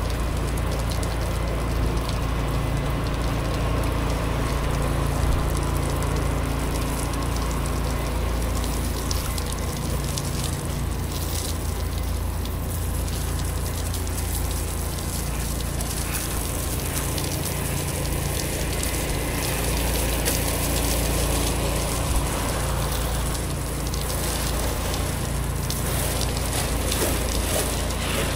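Pressure washer's gas engine running steadily under the continuous hiss of a water spray hitting the house.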